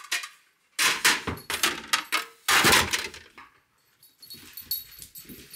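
Miniature poodle puppy barking: two loud outbursts about two seconds apart, then fainter sounds near the end.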